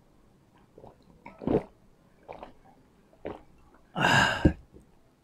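A man gulping a drink from a glass, three swallows about a second apart, then a loud breathy, voiced exhale lasting about half a second.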